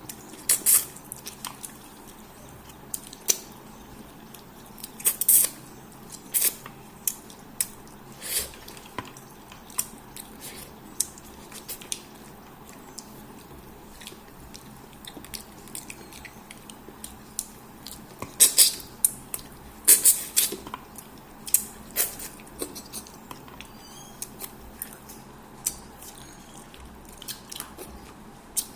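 Close-up eating sounds of fish head curry with rice: irregular wet mouth smacks, chewing and sharp clicks, coming in clusters.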